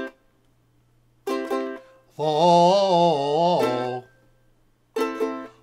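Ukulele strummed in short chords: one at the start, two quick ones about a second in, and another near the end. Between them a man's voice sings a long 'oh' with a wavering pitch.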